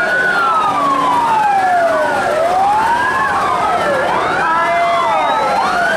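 Several fire-truck sirens on old Škoda 706 RTHP fire engines wailing at once, out of step with each other. Each slowly rises and falls in pitch, so the tones cross and overlap.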